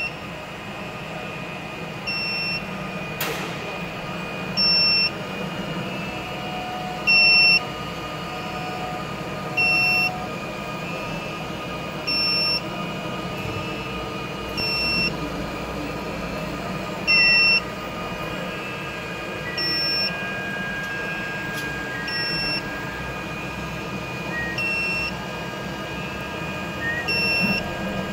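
Roboze 3D printer running: a steady machine hum with a short, high tone repeating about every two and a half seconds.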